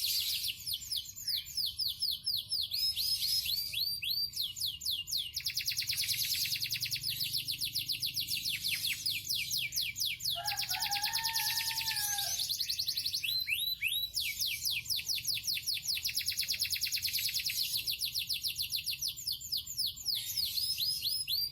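Yellow domestic canary singing a long, unbroken song of fast, high trills made of rapidly repeated downward-sweeping notes, with a brief lower warbled phrase about ten seconds in.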